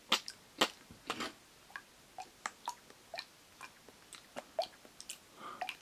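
Thick strained tomatoes (passata) poured from a carton into a pot, landing with irregular wet clicks and plops. The loudest few come in the first second or so, then they thin out.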